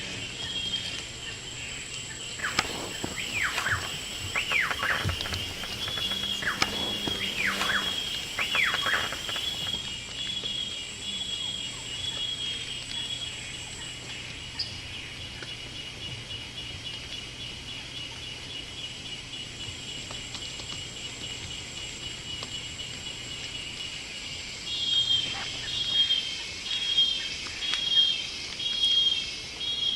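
Tropical forest ambience of insects and birds: a steady high insect drone and a fast pulsing trill throughout, a run of falling whistled calls a few seconds in, and a louder call repeated about once a second near the end.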